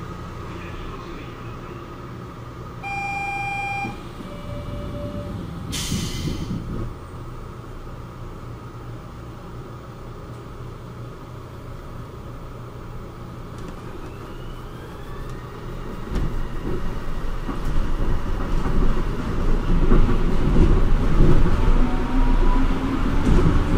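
Kobe Port Liner rubber-tyred automated people-mover train standing at a station with a steady low hum. A two-note chime sounds, high then low, followed by a short hiss. From about two-thirds of the way through, the train pulls away with a rising electric motor whine and a growing rumble of tyres on the guideway.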